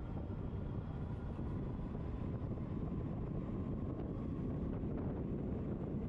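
Wind buffeting the microphone of a moving e-bike: a steady, even low rumble with no break.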